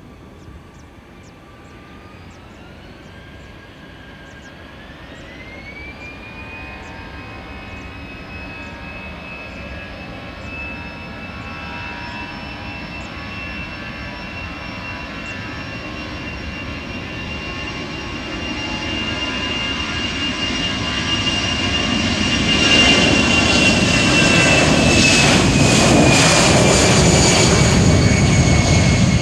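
Airbus A319-112's CFM56 turbofan engines spooling up to takeoff thrust. A whine rises in two steps over the first several seconds, then holds steady while the engine noise grows steadily louder as the jet accelerates down the runway toward and past the listener. The whine drops slightly in pitch near the end as it goes by.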